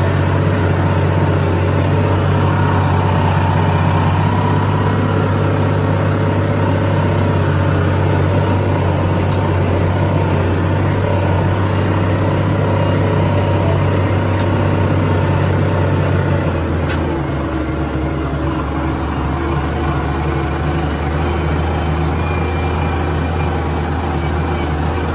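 Farm tractor's diesel engine running steadily under load while pulling a disc harrow, heard from the driver's seat in the cab. About two-thirds of the way through, the engine note drops to a lower speed and stays there.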